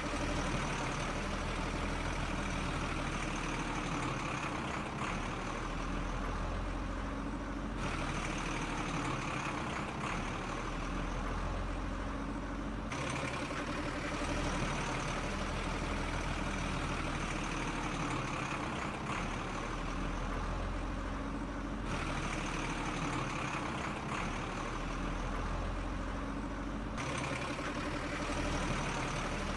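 Sound-effect recording of a heavy truck engine idling steadily, dubbed over the toy truck, with its upper hiss changing abruptly at a few splices.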